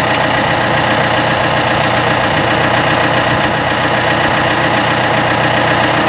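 John Deere 5100M tractor's four-cylinder diesel engine idling steadily.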